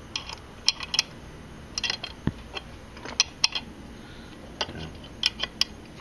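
Metal wrench working a bolt on a motorcycle: irregular sharp metallic clicks and taps of the wrench against the bolt and the chrome around it, with one duller knock a little past two seconds in.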